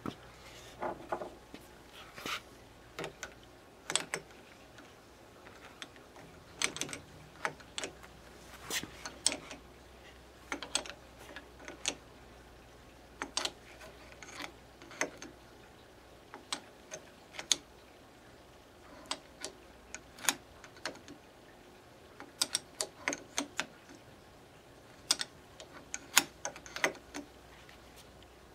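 Irregular sharp metal clicks and taps, some in quick clusters, as a screwdriver and pliers work against a ball screw's metal motor mount and the nut being turned round on it a little at a time.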